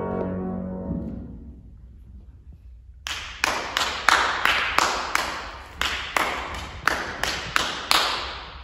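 A grand piano chord dies away, then after a short lull comes a run of about a dozen sharp percussive hits in an uneven rhythm, a little over two a second, each ringing out briefly in the hall.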